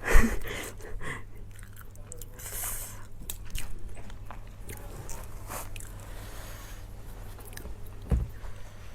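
Close-up eating sounds: food being bitten and chewed, with scattered small mouth clicks. A thump right at the start and another soft one near the end.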